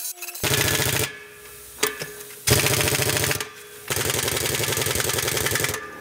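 Impact wrench hammering in three bursts on the flange bolts of a road roller's vibratory drum hub, the last burst the longest.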